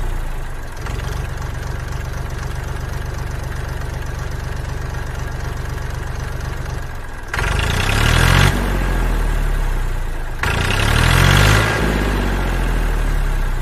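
A tractor engine idling with a steady rapid low beat, then revving up and back down twice in the second half.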